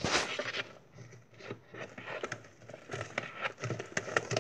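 Spoon stirring foamy homemade slime in a plastic bowl: a scraping stir at the start, then quick wet clicks and crackles that come thicker and faster in the second half.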